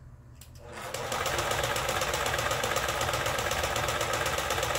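Mother household sewing machine starting up about a second in and sewing an overlock stitch, its needle mechanism running in a fast, even rhythm. It has a slightly rough, clunky sound, which the repairman puts down to this being a low-priced machine.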